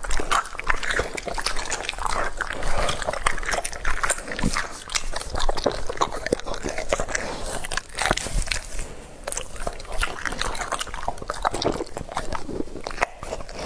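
Rottweiler chewing food and smacking and licking its lips: a close, continuous run of irregular wet smacks and crunchy clicks.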